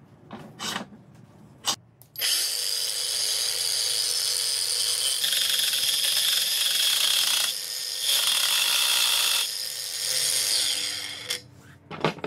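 Cordless angle grinder with a cutting disc cutting through a steel threaded rod held in a bench vise: a loud, gritty cutting noise over the motor's steady whine for about nine seconds, easing briefly near the middle, then the motor running down. A few metallic clicks from the vise and rod come before it, and a clatter near the end as the grinder is set down.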